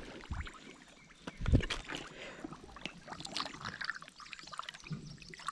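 Scattered small clicks and knocks from handling gear in a boat, with light water trickling and dripping; one louder thump about one and a half seconds in.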